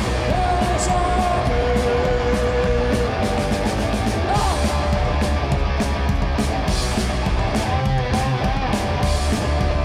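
Live punk rock from a two-piece band: electric guitar holding long sustained notes over standing drum kit playing, with repeated cymbal crashes.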